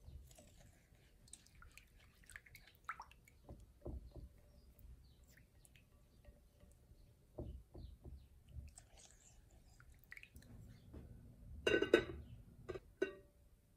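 Small scrapes, taps and clicks of a spatula stirring yeast, sugar and water in a ceramic bowl. About 12 seconds in, the ceramic bowl is gripped and shifted on the wooden board, giving a cluster of sharp ringing clinks followed by two more clicks.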